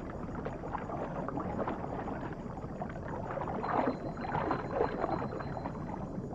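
Muffled underwater churning and bubbling of water stirred by giant otters swimming, a dense crackling swish that swells twice in the second half.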